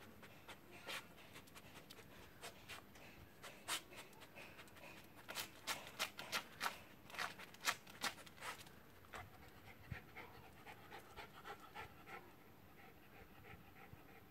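Jack Russell terrier sniffing hard with its nose down, hunting a lizard: scattered sniffs, then a quick run of sharp sniffs about five to eight seconds in, followed by softer, fainter snuffling breaths.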